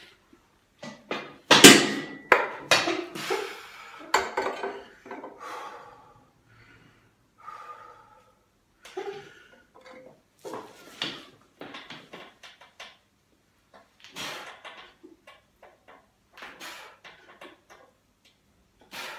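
Heavy 40 kg plate-loaded dumbbells clanking as they are lifted into position: a loud ringing metal clank about a second and a half in, then a few more clattering knocks. After that come fainter knocks and rustles roughly every second during the pressing.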